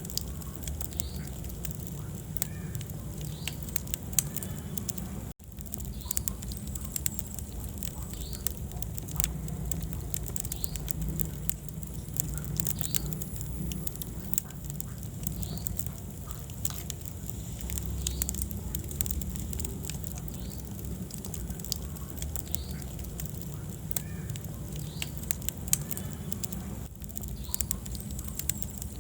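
Wood fire burning in a fireplace, with a steady low rumble of the flames and frequent sharp crackles and pops. The sound cuts out for an instant about five seconds in.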